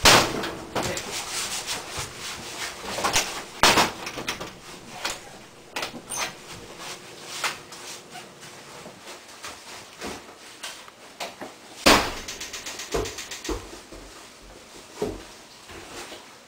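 A run of irregular knocks and thumps, with three loud ones: at the start, about four seconds in and about twelve seconds in. Many fainter taps fall between them.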